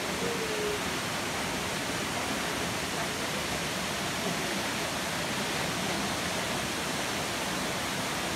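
Steady, even rush of falling water from Trafalgar Falls' waterfalls.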